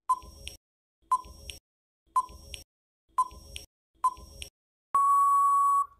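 Quiz countdown timer sound effect: five short electronic beeps, one a second, then one long steady beep of about a second that marks time running out.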